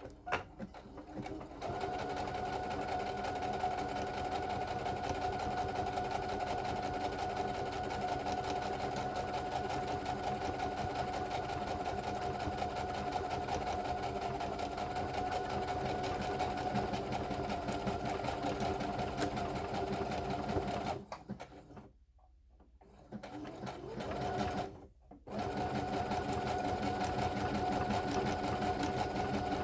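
Brother HC1850 computerized sewing machine stitching a one-step buttonhole at a reduced speed setting, running steadily. It stops for a couple of seconds about three-quarters of the way through, then starts up and runs on.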